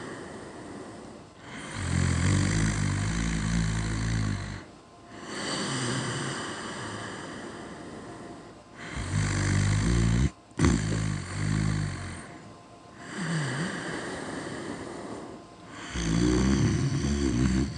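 Snoring: a low rattling snore comes about every seven seconds, with a long breathy breath between each.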